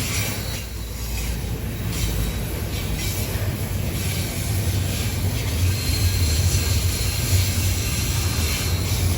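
Intermodal freight train rolling past, its wagons making a steady low rumble on the rails that grows slightly louder toward the end.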